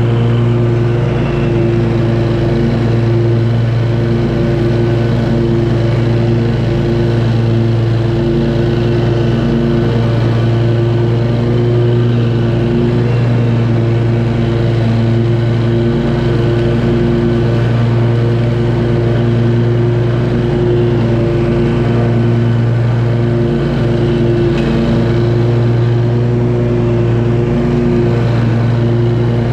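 2018 Scag V-Ride II stand-on mower running steadily while cutting grass, its engine holding an even, unchanging pitch.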